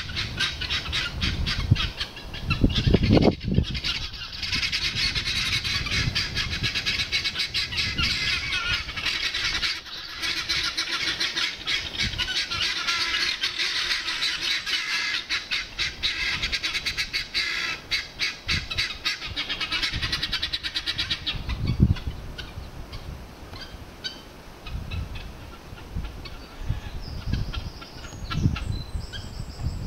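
A flock of helmeted guineafowl calling: a dense, rapid, harsh chattering of repeated squawks. It thins out to scattered calls after about twenty seconds.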